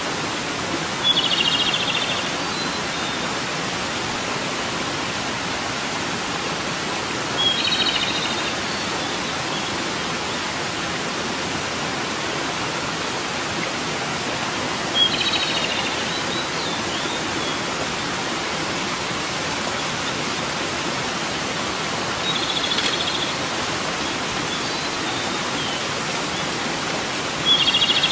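Japanese robin singing: five short trilled phrases, each about a second long, coming roughly every seven seconds, over a steady hiss.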